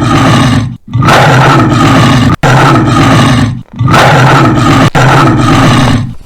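Lion roaring, a recorded sound-effect clip: a run of about five loud, rough roars, each a little over a second long, one straight after another.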